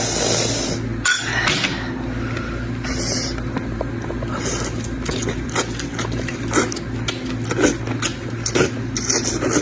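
Close-up eating sounds: chewing with many short wet mouth clicks and smacks, and two brief breathy slurps near the start and about three seconds in, over a steady low hum.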